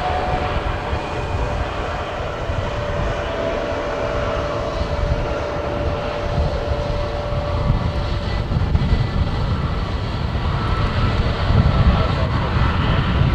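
Dassault Falcon 8X business jet's three turbofan engines at takeoff power on the takeoff roll: a steady jet roar with a faint whine, the nose lifting near the end.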